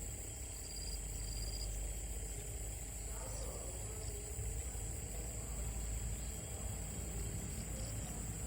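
Insects droning as a steady, high, even buzz, with a few short chirps early on and a low rumble underneath.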